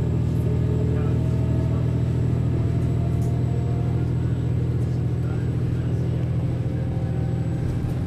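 Diesel railcar running along the line, heard from inside: a steady low engine drone with a faint whine that rises slowly in pitch over the first few seconds.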